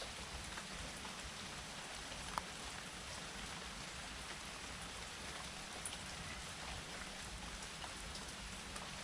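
Steady rain falling, with single drops pattering close by now and then; one sharper drop strike about two and a half seconds in.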